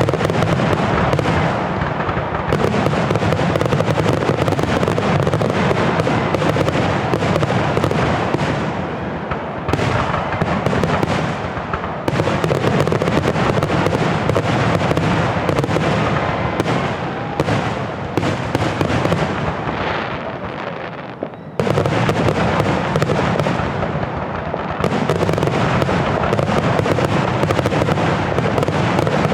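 Aerial fireworks show going off in a dense, nonstop barrage of bangs and crackling, with a short lull about three-quarters of the way through.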